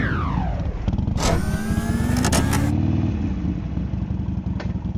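Harley-Davidson XL 1200 Sportster's V-twin engine idling, with a brief rev a little past two seconds in. Knocks and rustling close to the helmet-mounted microphone come about a second in and again around two and a half seconds.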